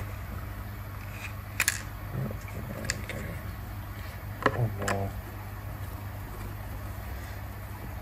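A few sharp clicks and taps of a screwdriver working the screws in the plastic housing of a Ring Alarm outdoor siren, the loudest about one and a half seconds in, over a steady low hum.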